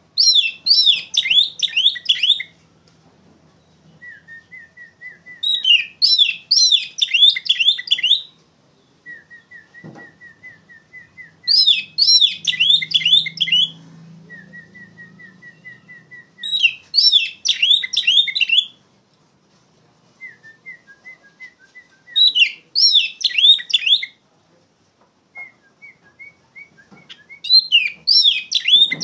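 Oriental magpie-robin (kacer) singing loudly in a repeated pattern. A burst of rapid, sliding high notes lasts about two and a half seconds, comes back about every five seconds, and softer runs of short, evenly spaced notes fill the gaps between bursts.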